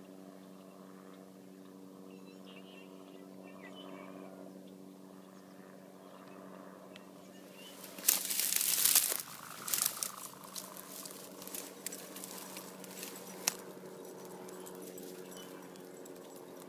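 Dry brush and grass rustling and crackling, with a loud rustle lasting about a second near the middle and scattered crackles after it, over a faint steady low hum.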